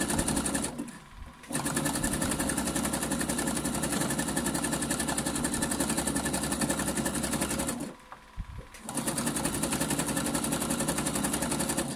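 Electric sewing machine stitching at a fast, even pace, zigzag-sewing coils of fabric-wrapped cord together into a basket. It stops briefly twice, about a second in and again about eight seconds in, then runs on.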